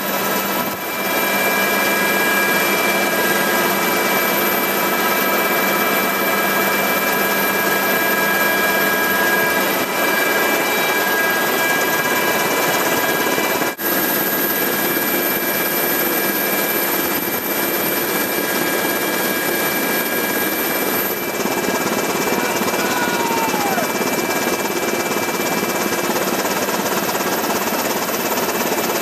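UH-60 Black Hawk helicopter running steadily: loud, dense rotor and turbine noise with steady whining tones, broken by a brief dropout about halfway through.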